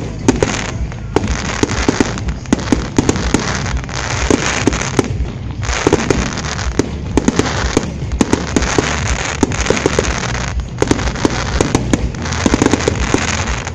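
Fireworks display: aerial shells bursting overhead in rapid succession, with dense crackling made up of many sharp pops and bangs. It comes in waves with two brief lulls.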